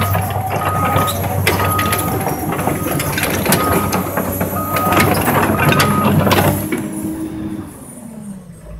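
Komatsu 200 excavator working close by: steady diesel engine hum under clanking and knocking from the machine, with a short high beep about once a second from its alarm. After about six and a half seconds the beeping stops and the engine drops in revs, its pitch falling as the noise dies down.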